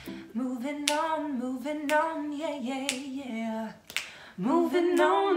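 Women singing an improvised jingle without accompaniment, with finger snaps keeping time about once a second. The singing breaks off briefly near the four-second mark, then starts again.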